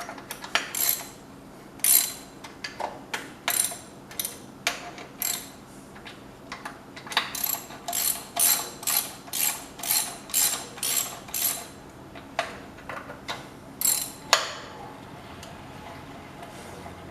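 Hand ratchet wrench clicking as the cylinder head bolts are run down. It comes in short runs of sharp clicks, with a steady stretch of about two strokes a second in the middle.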